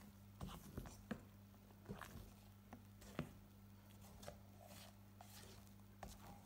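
Spatula folding whipped egg-foam batter in a stainless steel bowl: faint, irregular soft taps and scrapes against the bowl, over a low steady hum.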